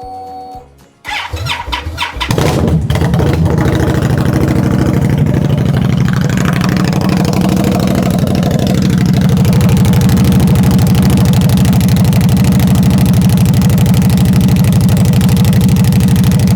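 2021 Indian Scout's V-twin engine starting with no mufflers: the starter cranks about a second in, the engine catches, then it idles loudly and steadily through open pipes, its level rising a little about halfway through.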